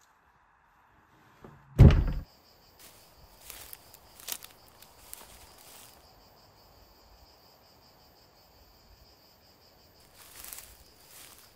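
A single heavy thud about two seconds in, then faint scattered knocks and shuffling over a steady, faint high-pitched hiss.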